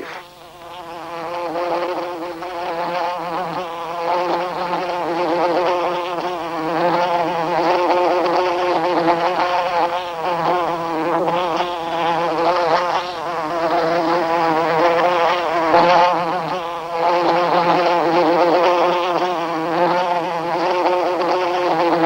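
Polistes paper wasps buzzing their wings on the nest comb: a steady droning hum with a slightly wavering pitch that fades in over the first couple of seconds. The buzz is the wasps fanning the nest to regulate its temperature for the larvae.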